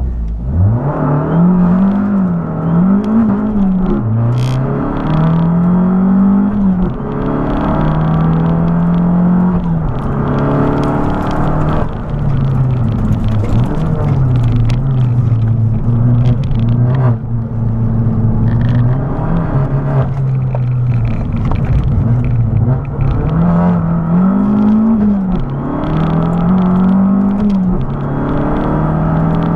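Abarth 500's turbocharged 1.4-litre four-cylinder engine heard from inside the cabin, pulling away hard from the start line and revving up and dropping back through the gears at speed. It holds a lower, steadier note for several seconds midway before climbing again near the end.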